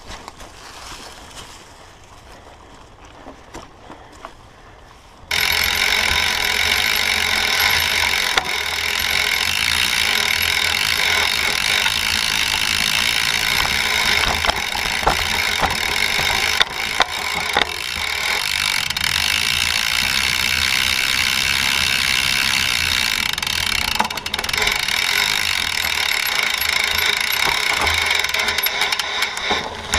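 Mountain bike rolling over a dry, leaf-covered dirt trail: tyres crunching through leaves with chain and frame rattle and scattered clicks. About five seconds in it becomes much louder and denser, picked up by a camera mounted low on the frame next to the chain.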